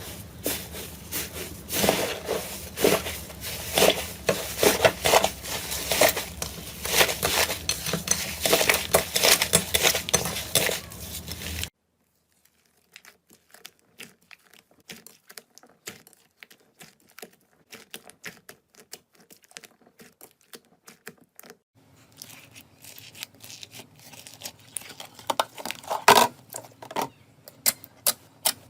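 Slime being squeezed and pressed by hand, giving rapid crackling and popping clicks. The sound is dense and loud for about the first twelve seconds, cuts abruptly to a much quieter run of sparse pops, then grows louder again about eight seconds before the end.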